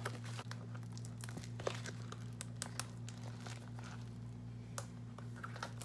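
Plastic bubble mailer crinkling, with many small sharp crackles, as it is handled and worked open by hand without scissors.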